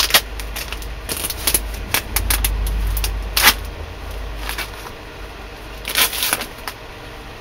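Wrapping being torn and crinkled off a knife: a run of sharp crackles and clicks, with a low rumble underneath for the first few seconds.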